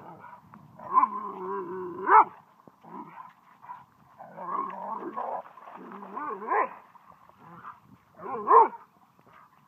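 German Shorthaired Pointers vocalizing at each other in play: pitched, wavering growl-like calls in three bouts, the last one short and loud near the end.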